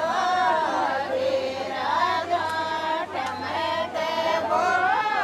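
Women singing a Rajasthani wedding folk song together, a melodic, chant-like line of several female voices.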